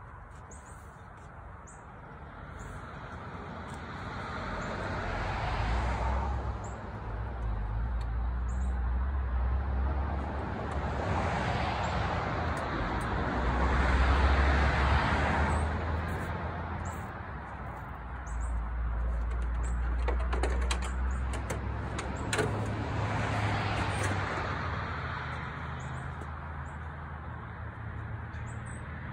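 Road traffic: several vehicles pass one after another, each swelling and fading over a few seconds with a low engine hum. Faint bird chirps sound over it.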